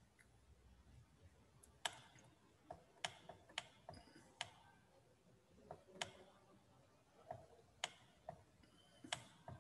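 Faint, unevenly spaced sharp clicks, about eight in all, of a stylus tapping on a pen tablet while handwriting goes onto a digital whiteboard, against near silence.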